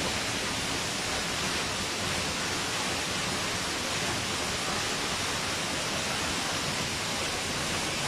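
Steady, even rush of a tall free-falling waterfall, a single column of water dropping about 54 m, heard from under the rock overhang behind it.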